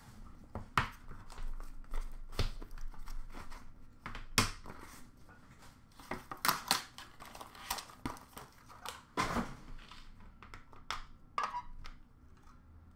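A trading-card box and its cardboard and paper packaging handled and opened by hand. Irregular sharp rustles, crinkles and light knocks, the loudest about four and nine seconds in.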